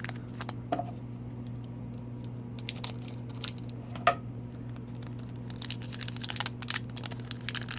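Crinkling and tearing of a trading-card pack's foil wrapper being handled and opened, with scattered light clicks at first and a dense crackle in the second half.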